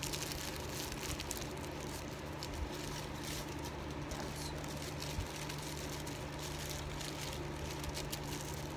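Light rustling and crinkling of a green tissue-paper honeycomb decoration being fanned open and folded shut in the hands, as small irregular clicks over a steady low hum.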